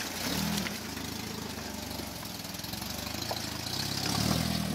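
Off-road vehicle engine idling steadily, growing a little louder near the end.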